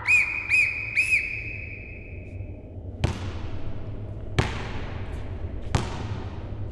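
Three short, warbling blasts on a sports whistle, the last ringing on in the hall's echo, then a basketball bounced three times on a sports-hall floor, about one bounce every second and a half.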